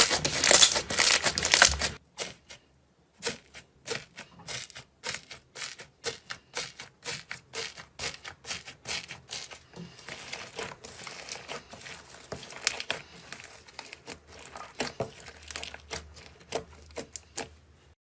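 Slime being handled close to the microphone: a dense burst of crackling for about two seconds, then, after a short pause, a long run of separate small clicks and pops.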